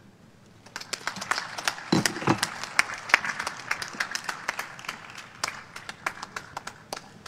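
Seated audience applauding: many hand claps that start about a second in and thin out toward the end.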